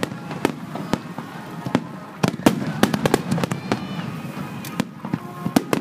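Fireworks display finale: many shells bursting in rapid, irregular succession, sharp bangs and cracks overlapping one another.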